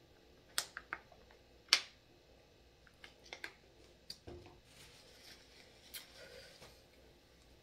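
Sharp crackles and clicks from a thin plastic water bottle being drunk from and handled, the loudest about two seconds in, then more clicks around the fourth second. Near the end, a soft rustle of a paper napkin wiped across the mouth.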